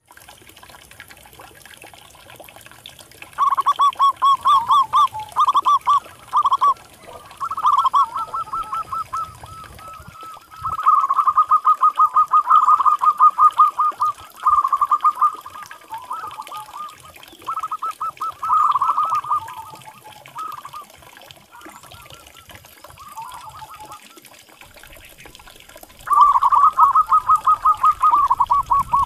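Zebra doves (perkutut) cooing: bouts of rapid staccato notes, each a second or two long, repeated with short pauses from about three seconds in.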